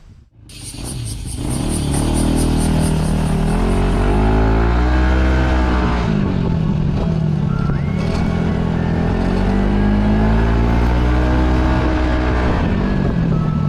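Yamaha Majesty S scooter's single-cylinder engine running on the move, its pitch rising as it accelerates and falling as it eases off, more than once. Its CVT is fitted with Dr. Pulley weight rollers.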